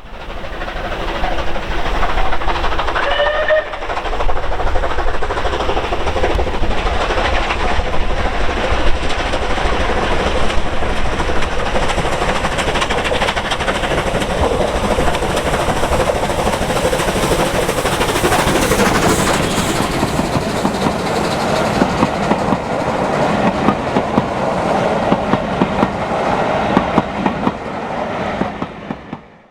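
Rebuilt Bulleid Battle of Britain class three-cylinder steam locomotive working hard under load, its exhaust loud and continuous, with the clatter of the train on the rails. A short high tone about three seconds in.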